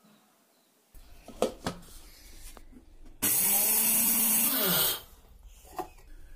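Electric mixer grinder running in one short burst of under two seconds, its blades grinding whole ragi (finger millet) grain coarsely, then winding down with a falling pitch. A couple of light knocks come before it.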